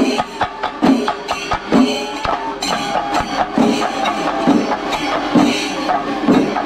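Kerala temple percussion (chenda melam): fast stick strokes on chenda drums over a heavier beat about once a second, with some held tones above.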